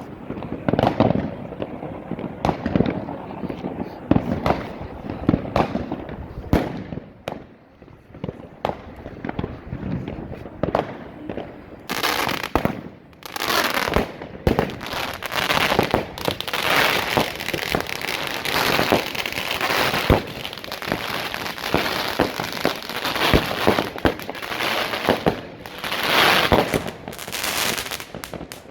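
Casino Royal 36-shot firework cake firing a rapid series of shots and bursts. From about twelve seconds in, dense crackling joins the bangs.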